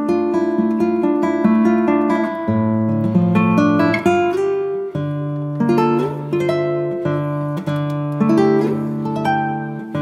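Background music played on acoustic guitar: plucked notes and strummed chords at a moderate pace.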